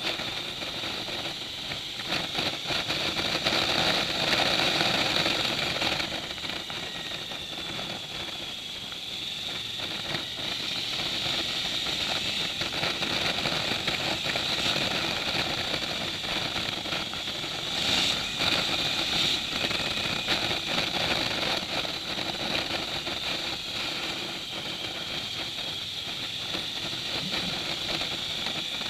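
Motorcycle engine running with wind and road noise while riding, rising and falling in level.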